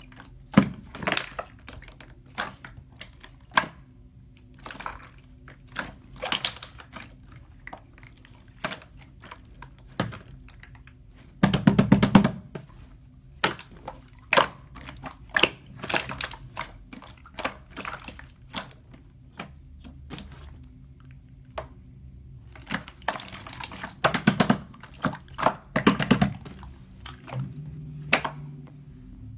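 Irregular sharp taps and clicks, with a few quick rattling runs of clicks, in a small room.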